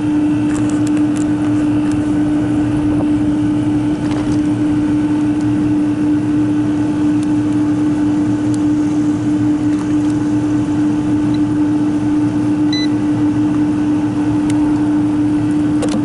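Steady mechanical hum with one strong low drone, from running rooftop machinery, with a few light clicks.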